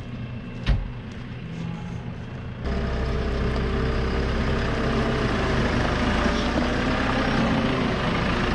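A farm vehicle's diesel engine running steadily, with one sharp click about a second in. Partway through, the sound jumps abruptly to a louder, fuller engine run.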